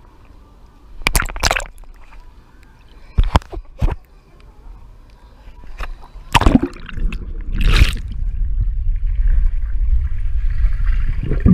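Swimming-pool water splashing against a camera held at the surface: four sharp splashes in the first eight seconds, then a steady muffled low rumble as the camera is dipped under water.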